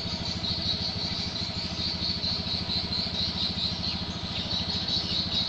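A small engine running steadily, with fast even pulses, and a continuous high-pitched insect trill over it.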